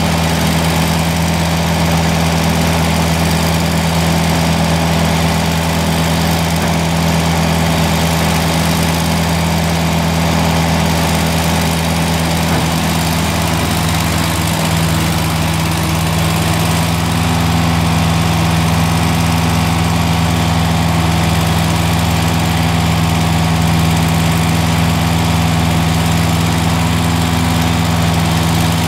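Fordson Dexta tractor engine running steadily under load, driving a Jeulin bale chopper off its PTO as the chopper shreds and blows out straw.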